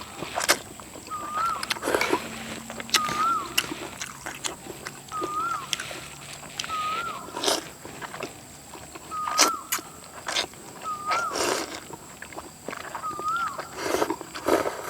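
An animal calling over and over, a short rising-then-falling note about every two seconds, with irregular sharp clicks and knocks in between.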